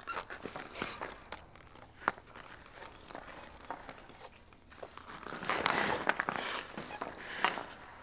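Hockey skate blades moving on ice: scattered sharp clicks and short scrapes, a crisp click about two seconds in, and a longer, louder scrape of the blades carving the ice from about five to six and a half seconds.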